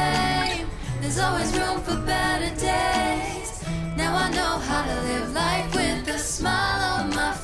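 Background pop music: a woman singing over a bass line that moves from one held note to the next.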